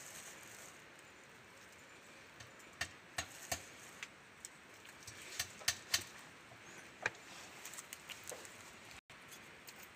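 Faint scattered ticks and pops, about a dozen over several seconds, from leafy vegetables cooking in a wok over a gas burner.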